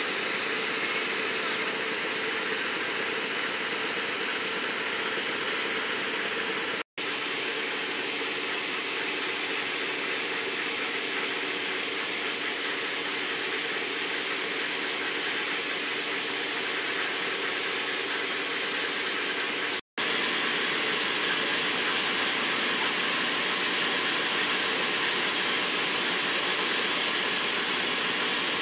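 Diesel locomotive 805 idling while stopped, a steady engine rumble with some hiss. The sound drops out briefly twice, about seven and twenty seconds in.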